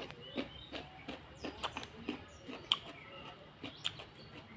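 Eating sounds: irregular wet clicks and mouth smacks of someone eating rice with chicken curry, several a second, with faint bird chirps behind.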